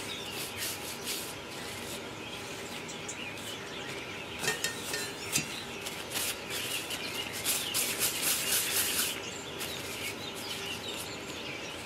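Hands rolling small balls of soft crumbled-biscuit and hazelnut-cream dough between the palms, making light rubbing and crackly, sticky touches, busiest about two-thirds of the way through.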